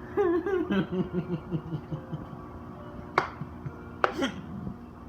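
A person laughing in a run of short chuckles that drop in pitch over about two seconds, followed by two sharp clicks about a second apart.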